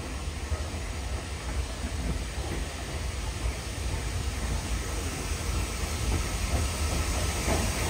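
Steam train's steady hiss and rumble, growing gradually louder.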